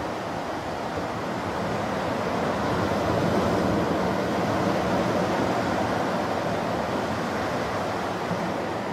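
Ocean surf breaking and washing up the sand, a steady rush that swells louder for a few seconds in the middle.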